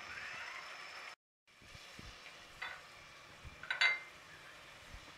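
Mash (urad) dal bubbling in an aluminium pot as its water boils off, with a cut about a second in to a quieter simmer. Two short clinks follow, the louder one with a brief ring near the end.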